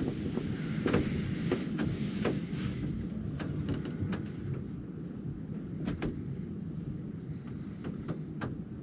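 Steady wind rumble on the microphone in a snowstorm, with irregular light knocks and clicks scattered through it, a few louder ones in the first few seconds.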